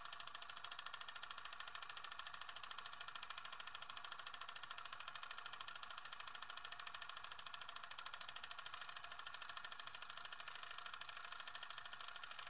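Film projector running: a fast, even mechanical clicking with a light hiss, steady throughout.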